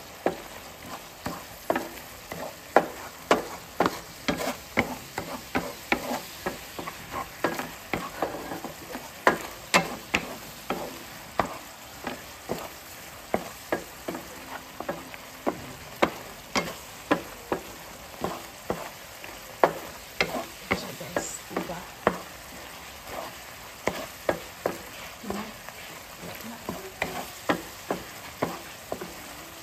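Black plastic spatula stirring and scraping tiny shrimp (alamang) in a nonstick frying pan, in quick repeated strokes about twice a second, over a steady sizzle from the bubbling sauce.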